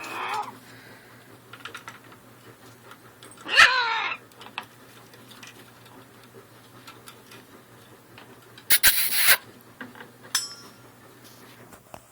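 Pet parrot calling between an owner's prompts: a loud squawk with a bending pitch about three and a half seconds in, a harsh, noisy screech near nine seconds, and a brief high chirp just after it.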